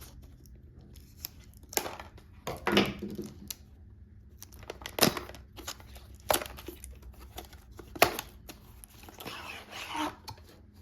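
Flashlight packaging being opened by hand: irregular rustling and crinkling with scattered sharp clicks and taps.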